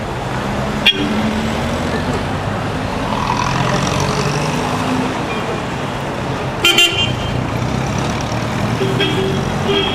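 City street traffic, with car engines running as cars drive past. A sharp click comes about a second in, and two quick car-horn toots near seven seconds are the loudest sound; shorter honks follow near the end.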